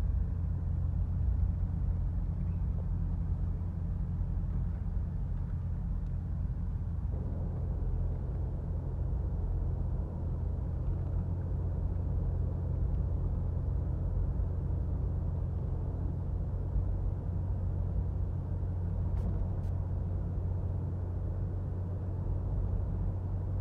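Steady low rumble of a car's engine and tyres on the road surface, heard from inside the moving car. The road noise grows a little fuller about seven seconds in.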